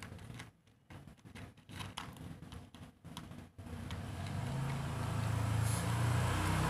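Domestic cat purring close up as it is stroked, a low, even hum that comes in about three and a half seconds in and grows louder. Before that, soft rustling and clicks of a hand moving over its fur.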